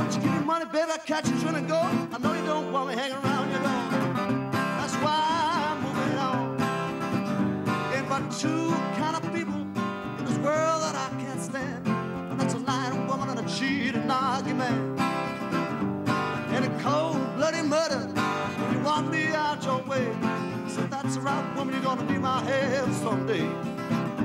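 Solo acoustic blues played on a metal-bodied resonator guitar: a continuous run of plucked notes over a steady rhythm.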